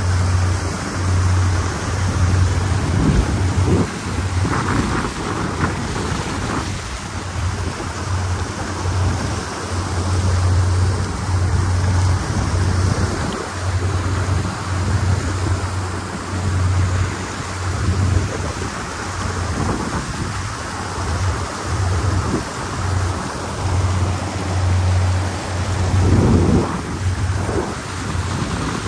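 Wind buffeting the microphone on a moving speed boat: a heavy low rumble that flutters on and off over a steady rush of engine and water noise.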